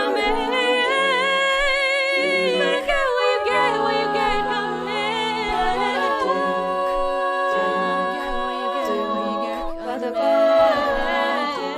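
A cappella vocal group singing wordless, sustained harmonies with a low bass line underneath, a closing vocal passage without lyrics.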